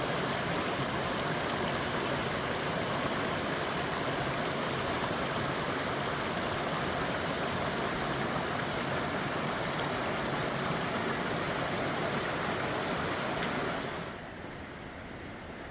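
Steady rush of creek or waterfall water, an even noise across all pitches. It drops off abruptly to a quieter hiss about fourteen seconds in.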